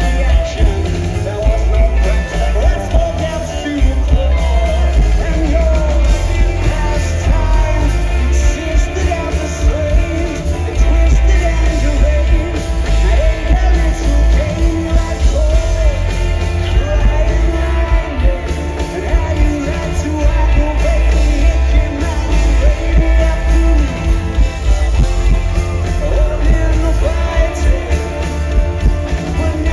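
Rock band playing live through a concert PA, with heavy bass and dense guitars, loud and continuous.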